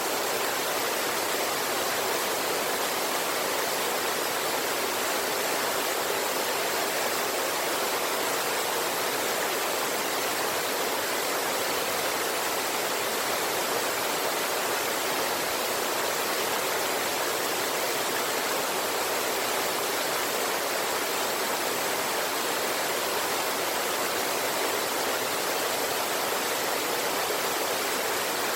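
River water rushing steadily over rocks and a waterfall, an even, unbroken roar of falling and flowing water.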